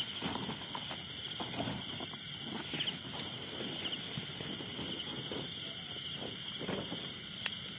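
Steady night chorus of crickets and other insects chirring, with irregular footsteps and rustling through dry leaves and brush as someone walks, and one sharp tick near the end.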